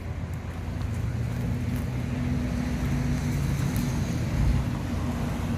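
Diesel engine of a loaded dump truck running steadily as the truck backs in, its low engine note growing a little louder over the first two seconds.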